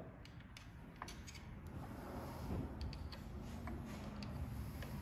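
Faint, scattered light clicks and scrapes of a screwdriver working against the metal parts around the needle and presser foot of a Yamata FY-335A industrial sewing machine, over a low steady hum.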